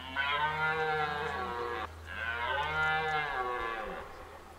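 Red deer stag roaring in the rut: two long calls back to back, the first breaking off about two seconds in, the second trailing down in pitch at its end.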